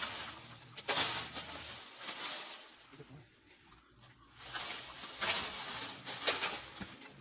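Dry palmyra palm fronds rustling and crackling in irregular bursts as a long bamboo pole is pushed among them, with a few sharp cracks.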